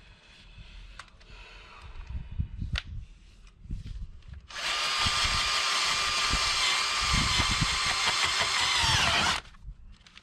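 Battery drill spinning an auger bit into heavy, sticky clay soil. It starts about halfway in and runs steadily for about five seconds, its whine sagging slightly in pitch under the load just before it stops. Light knocks and rustles come before it.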